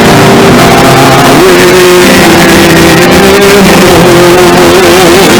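Live church worship music: sustained keyboard chords under a voice holding long, wavering sung notes, very loud throughout.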